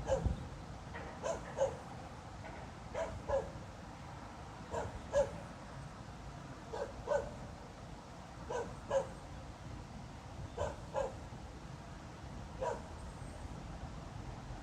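A dog barking in a steady rhythm, two quick barks at a time, a pair about every two seconds.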